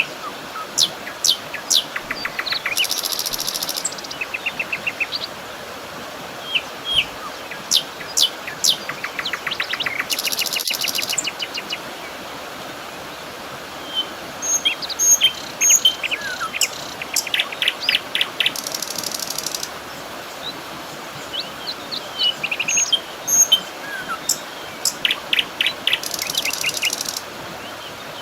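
Several wild birds singing and calling: quick high chirps, rapid trills, and a high buzzy phrase that comes back about every eight seconds, over a steady background hiss.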